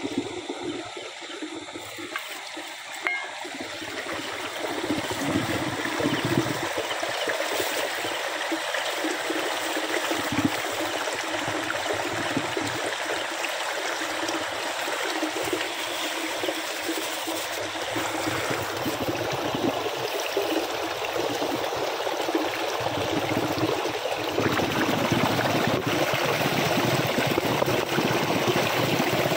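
Water running and splashing steadily down a small channel over concrete and plastic sheeting, gradually getting louder.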